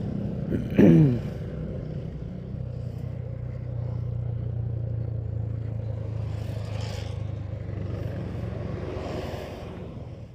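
Motorcycle engine running steadily while riding, with road and wind noise. A short, loud sound with a falling pitch comes about a second in.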